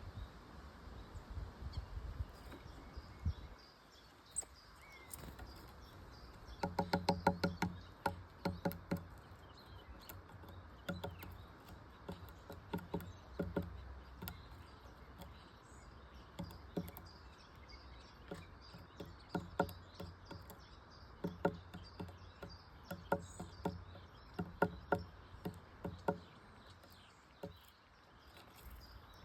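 Birds calling outdoors: repeated bursts of short, rapid, low-pitched calls, with faint high chirps of smaller birds behind and a steady background hiss.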